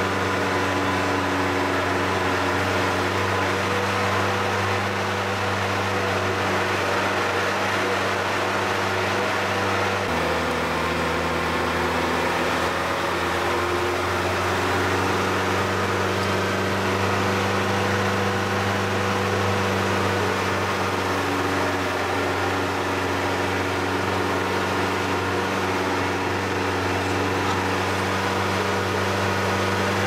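Vehicle engine running steadily under way, heard from inside the cab as an even drone over road noise; the engine note drops about ten seconds in and comes back up a few seconds later.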